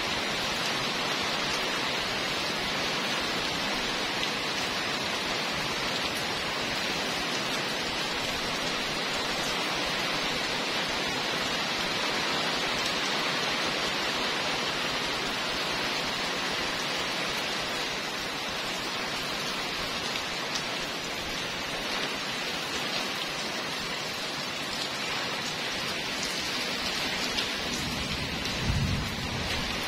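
Heavy rain pouring steadily onto a paved street, an even hiss of rainfall. A single low thump sounds near the end.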